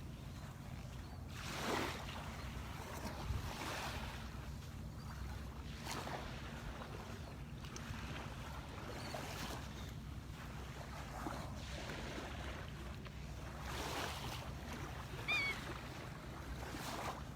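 Small surf waves breaking and washing up the beach every few seconds over a steady low rumble of wind on the microphone. A short high call sounds once near the end.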